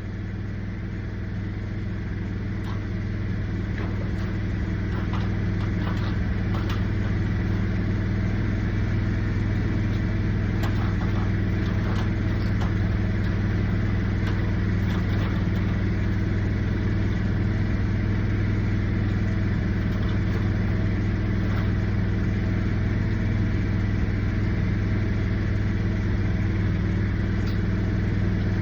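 An engine running steadily at a constant speed, with a few faint clicks in the first several seconds.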